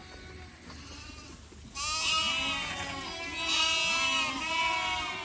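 A flock of goats and sheep bleating: several overlapping, wavering bleats begin about two seconds in and carry on until near the end.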